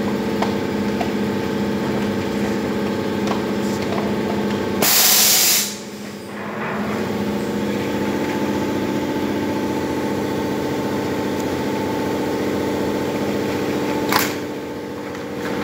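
Pneumatic scrubber blister packing machine running with a steady mechanical hum, broken about five seconds in by a loud hiss of compressed air lasting about a second, with a shorter sharp hiss near the end.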